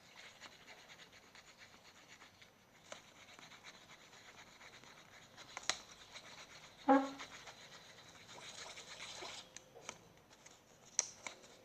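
Faint scraping and rubbing of shampoo-and-salt slime being stirred, with a few light clicks.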